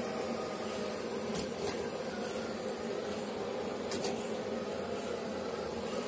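Hoover robot vacuum cleaner running on carpet: a steady motor and fan hum, with a few brief faint ticks.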